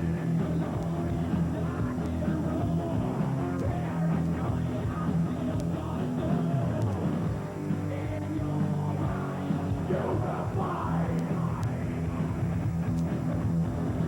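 Rock band playing loud, guitar-heavy music in a punk and heavy-rock vein, dense and steady throughout.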